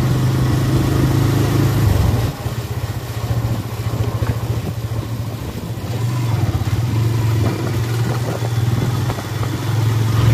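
Motorcycle engine running while riding at low road speed, a steady low engine note. The engine note drops away about two seconds in and comes back up from about six seconds in.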